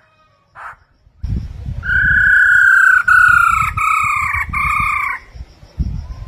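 Black-throated laughingthrush calling: a short note under a second in, then a loud phrase of four long clear whistled notes, each falling slightly, from about two seconds in to about five. A low rumble of noise sits under the song.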